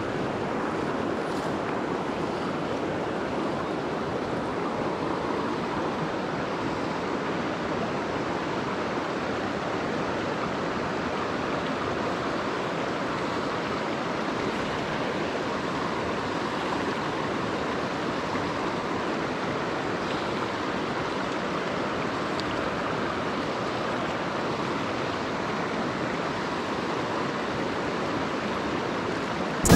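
A fast, stony river running: a steady, unbroken rush of water over riffles.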